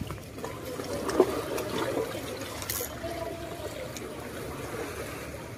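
Seawater lapping and trickling among the rocks of a breakwater, with scattered small clicks.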